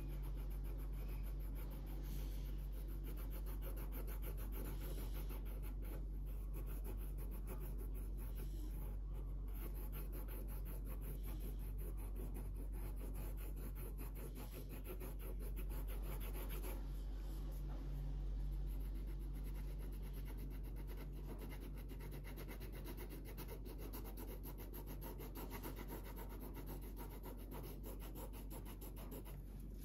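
Felt-tip marker rubbing on paper in rapid back-and-forth colouring strokes, over a steady low hum.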